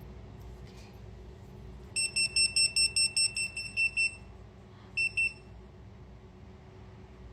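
Handheld hidden-camera detector beeping in a high tone, about five quick beeps a second for two seconds, then two more beeps about a second later. The alert is set off by a nearby phone.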